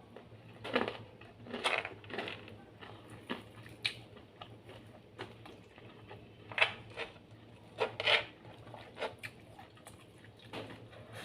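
A person eating close to the microphone: irregular chewing and crunching with sharp clicks and smacks, about one every second, two louder ones a little past the middle.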